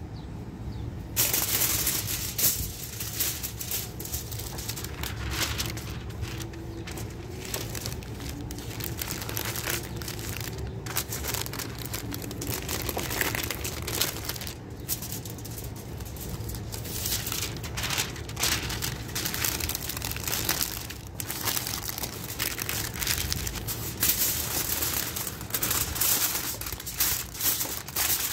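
Aluminium foil and parchment paper crinkling and rustling in irregular bursts as hands fold and crimp them around a joint of meat, starting about a second in.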